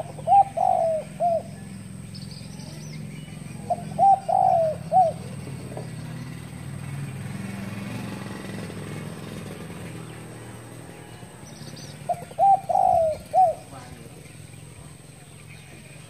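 Spotted dove cooing: three short phrases of about four coos each, one near the start, one about four seconds in and one about twelve seconds in. A faint steady low hum runs underneath.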